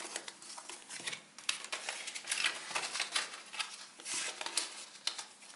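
Paper envelopes rustling and rubbing together as they are shuffled and handled, with many small clicks and taps and a few louder brushes.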